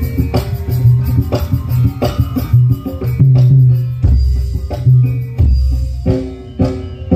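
Music with a drum beat and heavy bass played loud through a large sound system of Ashley power amplifiers and big speaker cabinets during a sound check. About four seconds in, a deeper sub-bass line comes in.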